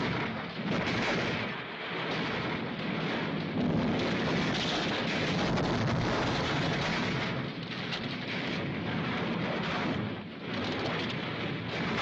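A car crashing end over end down a rocky hillside: a continuous rumbling crash of metal and tumbling rock, with brief lulls between the impacts.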